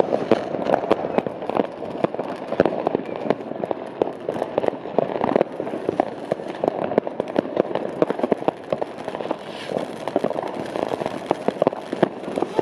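Many fireworks going off at once: a dense, unbroken crackle of bangs and firecracker pops, several sharp reports a second at irregular intervals.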